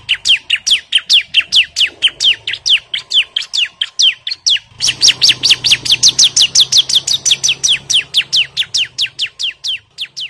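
Bar-winged prinia (ciblek) singing a fast, unbroken series of sharp downward-sliding chirps, about five or six a second: a male in full, agitated territorial song, calling out rivals.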